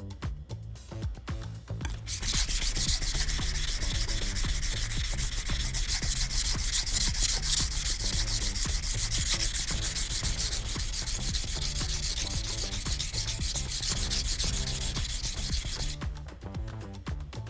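Steel knife blade being sharpened on a whetstone, a continuous scraping rub of the edge across the wet stone that starts about two seconds in and stops near the end. Soft background music plays underneath.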